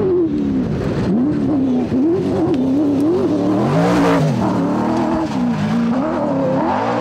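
Toyota off-road trophy truck's race engine at full throttle on a desert dirt track, its pitch rising and falling constantly as the throttle works over the bumps. It is loudest as the truck passes close about four seconds in, with a rush of tyre and gravel noise.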